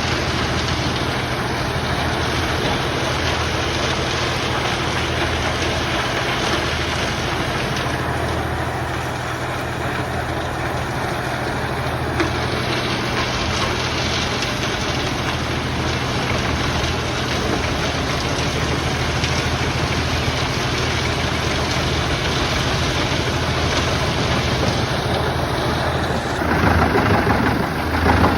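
Large wood chipper running steadily: a deep engine hum under a dense rushing noise. The sound changes abruptly near the end.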